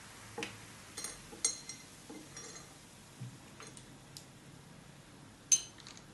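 Light clinks and taps of Mentos candies and fingers against glass containers, a few scattered knocks with a short ring, and one louder glass clink near the end.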